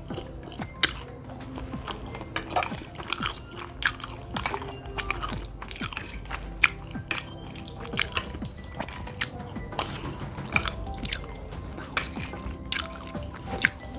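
Close-up wet eating sounds of a person chewing cheesy spaghetti and meatballs: many short, sticky smacks and clicks at irregular intervals, over quiet background music.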